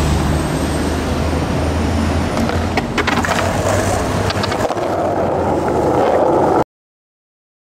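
Skateboard wheels rolling on street asphalt, a steady rumble close to the board, with a few sharp clicks about three seconds in from the wheels hitting cracks or small stones. The sound cuts off suddenly near the end.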